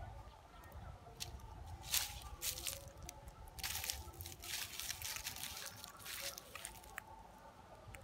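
Dry leaf litter crackling and rustling as a baby pigtail macaque picks through it with its hands: a few short bursts about two seconds in, then a longer crackly run in the middle.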